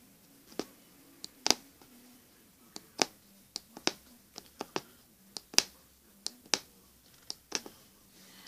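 Magic needle (punch needle) stabbing through fabric stretched taut in a wooden embroidery hoop. Each punch gives a sharp click, about two a second at an uneven pace.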